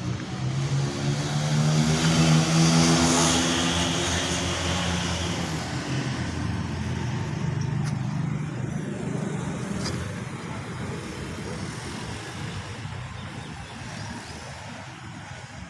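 Motor vehicle engine running, swelling to its loudest about two to three seconds in, then slowly fading away.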